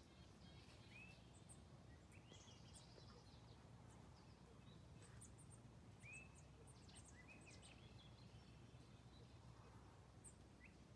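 Quiet outdoor ambience with faint, scattered small-bird chirps and calls, including two short arched chirps about a second and about six seconds in, over a low steady hum.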